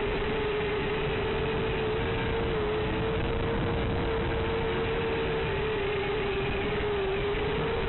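Steady static hiss with a constant hum-like tone running through it, the kind of noise an analog FPV video link's audio channel records. The tone wavers only slightly and does not follow the flying.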